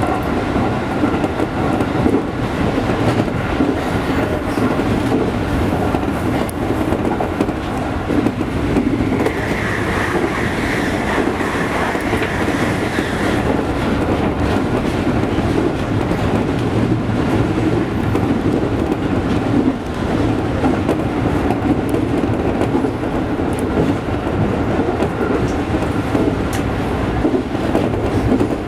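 A JR 207 series 900-subseries electric commuter train running along the line, heard from inside the driver's cab: a steady rumble of wheels on rail with light clicking. For a few seconds about a third of the way in, a higher whine or squeal comes in over the rumble.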